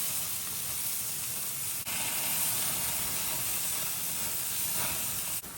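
Steak sizzling on a hot grill: a steady, loud hiss that dips for an instant about two seconds in.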